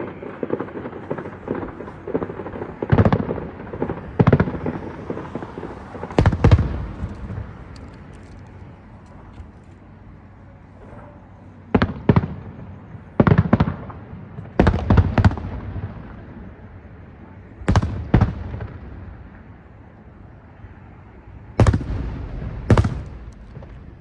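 Aerial fireworks show: shells bursting overhead in about a dozen sharp bangs, each trailing off in a low rumble, with a lull of a few seconds in the middle. A rapid crackle of small reports fills the first few seconds.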